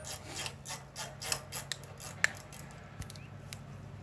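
A 12 mm spanner working the cap bolt on a backhoe's pivot pin: a run of small metal clicks and scraping, with one sharper click a little past halfway.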